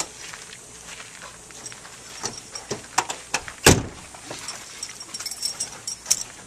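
Car door being handled as people get into a parked car: scattered clicks and knocks, with one loud thud of the door shutting a little over halfway through.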